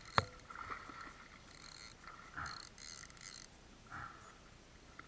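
A single sharp knock near the start, then faint, irregular splashes of water as a tope thrashes at the surface beside the kayak.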